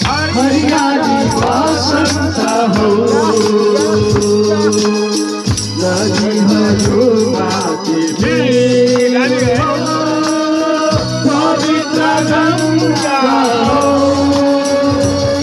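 A group of men singing a Nepali Deusi song together, with a rattling percussion keeping a steady beat.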